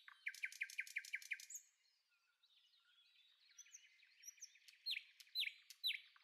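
Faint birds chirping: a quick run of about six short falling chirps in the first second and a half, then after a brief lull, scattered chirps that get louder toward the end.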